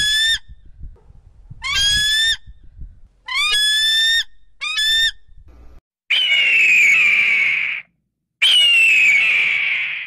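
Four short eagle calls, each a clear yelp that rises quickly and then holds. They are followed by two long, harsh, descending hawk screams.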